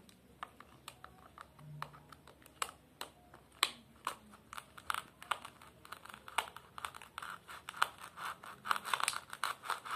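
Plastic toy knife scraping and sawing in the seam of a plastic toy watermelon: a faint series of short scratchy strokes, coming thicker and faster in the second half.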